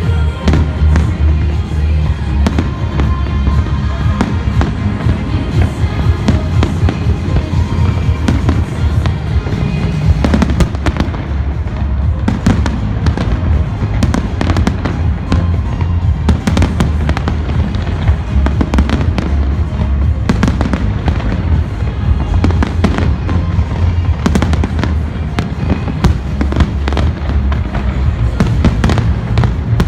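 Fireworks bursting in a rapid, continuous barrage of bangs and crackles, with music playing under them.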